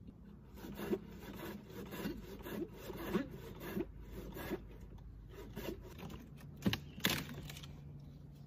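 Wood being cut with a hand saw in uneven back-and-forth strokes, with two sharp knocks close together about seven seconds in.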